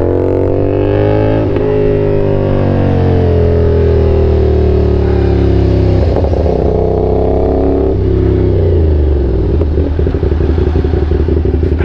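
CFMOTO 450-series parallel-twin motorcycle engine under way: the revs rise briefly, ease down through a long steady stretch, climb a little again, then fall away about nine seconds in to a low, uneven beat as the bike slows.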